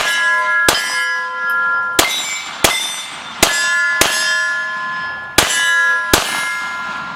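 Eight 9mm pistol shots at an uneven pace, each hit followed by steel targets ringing with long, bright, sustained tones.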